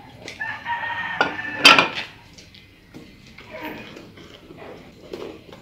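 A bowl scraping and knocking against the rim of an enamel pot, with a ringing tone and the loudest knock about 1.7 s in, then a wooden spoon stirring in the pot with light knocks against its side.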